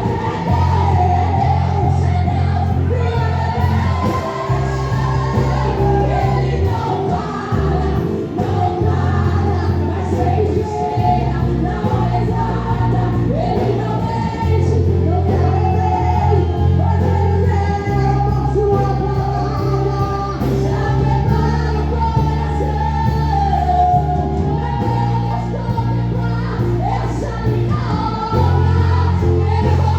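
Live gospel worship music with singing over a strong bass line and a steady beat.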